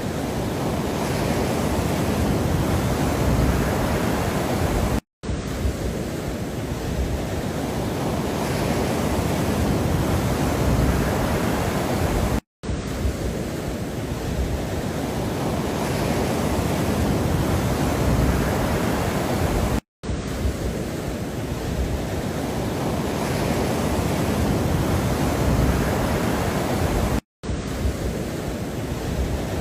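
Steady rushing noise from a looped relaxation sound track, like surf or wind. It cuts out for a split second four times, about every seven and a half seconds, where the loop restarts.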